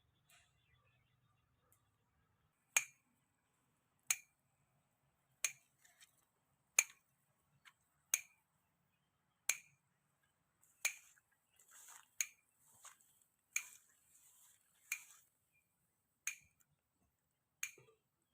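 Electric fence energizer pulsing: a sharp snapping click about every 1.3 seconds, with fainter crackling between the clicks in the second half.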